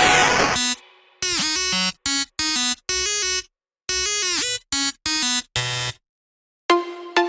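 Electronic background music: a dense track ends abruptly, followed by a stuttering run of chopped-up synth stabs with dead silence between them, then a plucked synth melody begins near the end.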